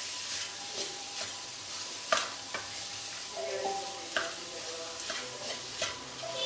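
Cauliflower rice frying and sizzling in a wok as it is stirred, the spatula knocking and scraping against the pan every half second to second, with the sharpest knock about two seconds in.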